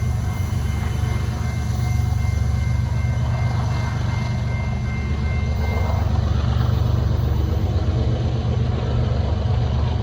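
Train rolling past with a steady low rumble. A faint thin high tone stops about six seconds in.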